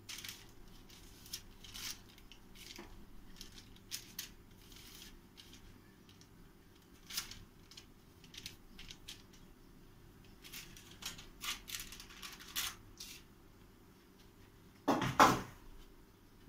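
Baking paper lining a round pan crinkling and rustling in short scratches as a long rope of dough is coiled into it. About fifteen seconds in there is one much louder rustle with a thud.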